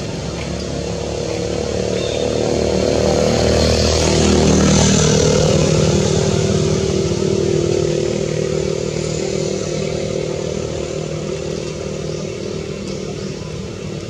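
A motor vehicle's engine passing by: it grows louder to a peak about four to five seconds in, then fades slowly.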